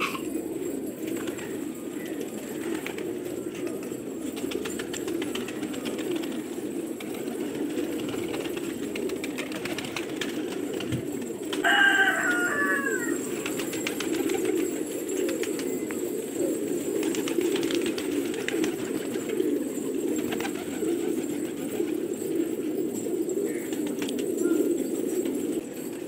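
A flock of domestic gola pigeons cooing together, a dense, steady low murmur of overlapping coos. About twelve seconds in, a short run of higher, falling calls stands out as the loudest sound.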